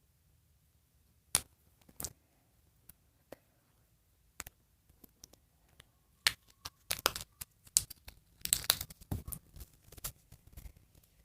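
Handling noises from a doll and its clothes being worked by hand: scattered sharp clicks and crinkles, a few at first, then coming thick and fast in the second half.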